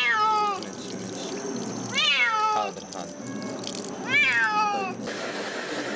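A cat meowing three times, about two seconds apart, each long call sliding down in pitch. It is protesting while being washed under running water at a sink.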